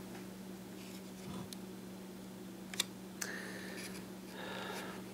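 Faint handling sounds from the plastic shell of a DJI Phantom 2 Vision drone being moved by hand: light rustles and one sharp plastic click a little under three seconds in, over a steady low hum.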